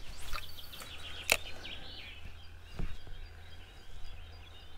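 Small birds chirping faintly, with one sharp click a little over a second in.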